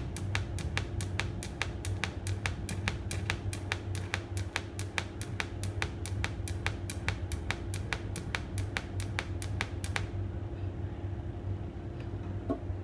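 TIG welder pulsing from an add-on pulse box: an even train of sharp ticks about four a second that stops about ten seconds in, over a steady low hum from the machine.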